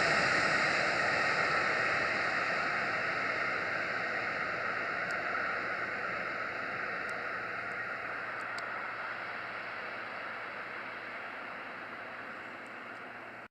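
Passenger train moving away after passing, its rushing running noise fading steadily into the distance.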